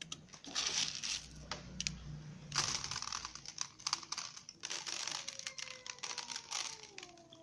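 Several cats and kittens eating together from a shared tray: a rapid, uneven patter of chewing and licking clicks.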